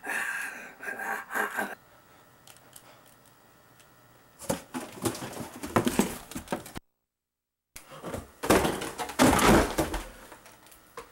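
Scuffling thumps and rustling in several noisy bursts, with about a second of dead silence partway through; the last burst, near the end, is the loudest.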